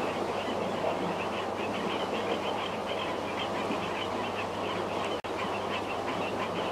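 Steady rush of a swift-flowing swamp gutter, under a constant, rapidly pulsing chorus of calling insects. The sound drops out for an instant about five seconds in.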